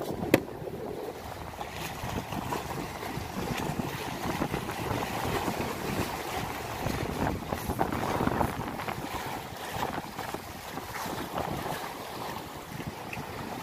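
Sea waves washing and splashing against the concrete tetrapods of a breakwater, with wind buffeting the microphone. Just after the start a plastic cooler lid shuts with a single sharp knock, the loudest sound here.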